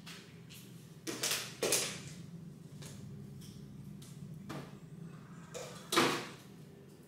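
Household handling noises: a few short knocks and scrapes, the loudest about six seconds in, over a low steady hum.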